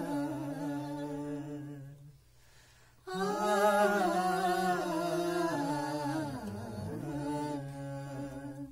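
Unaccompanied singing voice humming long wordless notes: one held note, a short pause about two seconds in, then a long sustained, slowly wavering line.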